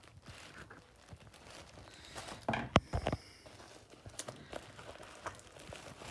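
Clear plastic bubble wrap crinkling and rustling as hands pull at it, with a louder burst of crackling and a sharp click between two and a half and three seconds in.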